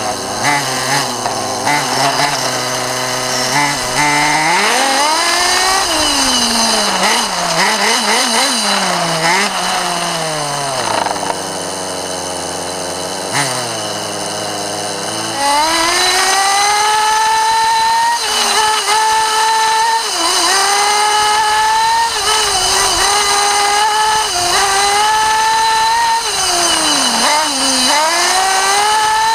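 Nitro RC buggy's small two-stroke glow engine, heard from a camera on the car: revving up and down, then idling steadily while the car stands. From about halfway it runs at high revs with a high whine, dipping every second or two as the throttle is eased for the turns.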